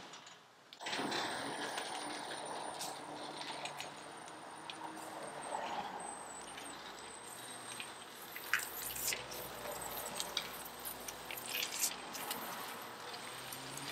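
Electric-converted John Deere 140 garden tractor creeping along under power from its 48-volt Chinese electric rear axle, with a thin steady high whine and a few sharp clicks and rattles from parts that are not yet bolted on.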